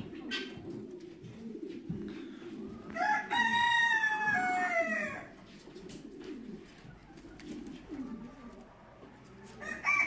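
A rooster crows once, a call of about two seconds that falls in pitch at the end, and starts another crow right at the end. Low pigeon cooing runs underneath.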